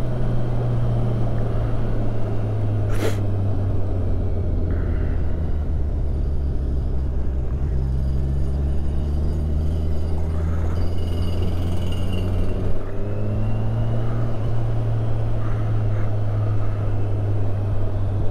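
Kawasaki Ninja 1000SX's inline-four engine running at town speed, heard from the rider's helmet camera over road and air noise. Its note slowly falls as the bike slows, then rises again about two-thirds of the way through as it pulls away. A sharp click sounds about three seconds in.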